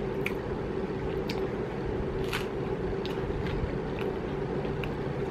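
Electric fan running with a steady hum, kind of loud, with a few short mouth clicks from chewing over it.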